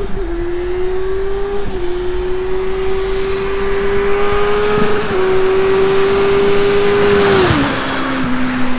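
Kawasaki Ninja 1000 inline-four on Yoshimura slip-on exhaust accelerating hard past, its pitch climbing and dipping as it shifts up twice. About seven and a half seconds in it passes, and the note drops sharply and trails away lower.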